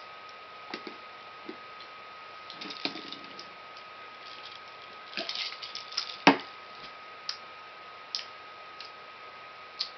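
Scattered soft clicks and small knocks, with one sharper knock about six seconds in, over a faint steady high-pitched whine.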